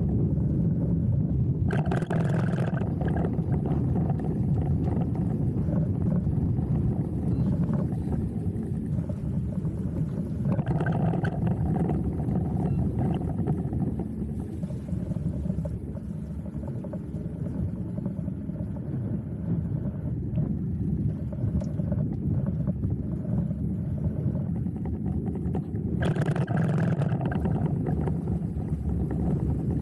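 A motorboat's engine running steadily under way, a low continuous rumble with water washing along the hull. A few brief surges of higher hiss come and go, about two seconds in, around ten seconds and near the end.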